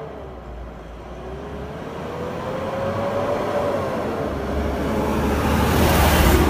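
A road vehicle approaching, engine and tyre noise growing steadily louder and peaking near the end.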